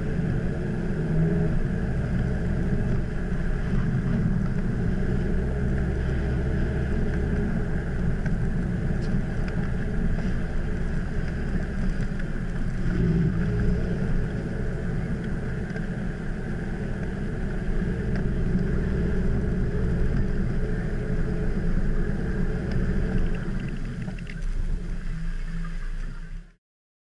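Car engine and tyre noise heard from inside the cabin while driving, a steady low rumble. It stops abruptly near the end.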